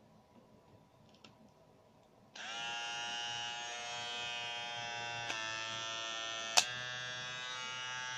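Kemei KM-680A electric grooming kit's motor switched on about two seconds in, then running with a steady buzz. A sharp click comes about two-thirds of the way through, and the pitch shifts slightly after it.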